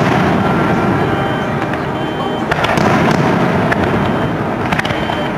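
Aerial firework shells bursting in quick succession, a dense continuous run of bursts with several sharper cracks in the second half.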